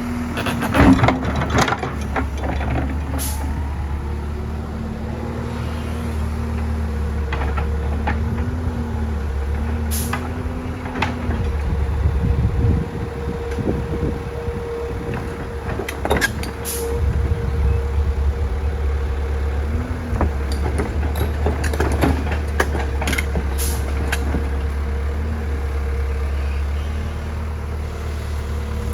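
Heavy diesel machinery running steadily, with a whine that dips and rises in pitch now and then and scattered metallic clanks and knocks.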